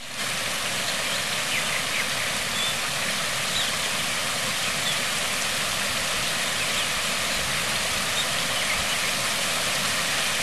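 Water splashing steadily down the cascades of a small rock-garden waterfall.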